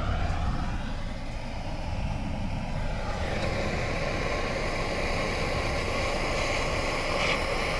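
Power drill running steadily, drilling into a broken bolt stuck in an engine block's stripped thread hole. The whirr grows brighter about three seconds in.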